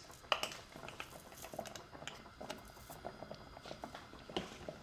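Tomato sauce simmering in a saucepan, with faint irregular pops and ticks, as crushed red pepper flakes are shaken in from a small jar; a sharper click comes about a third of a second in.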